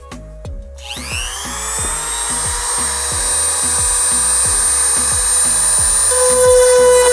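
Handheld rotary tool with a miniature drill bit spinning up about a second in, with a quickly rising whine, then running at high speed with a steady high whine while drilling a hole in a carbon fiber hood. Background music with a steady beat runs underneath.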